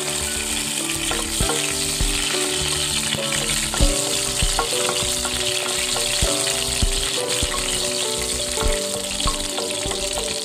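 Hot oil and ghee sizzling steadily in a kadhai as a tempering of urad dal, cumin and mustard seeds with raisins fries, with a spatula stirring and clicking against the pan now and then.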